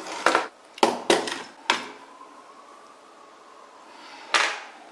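Tools and a circuit board being handled and set down on a workbench: four sharp clacks in the first two seconds, then a faint thin whine, and one more clack near the end.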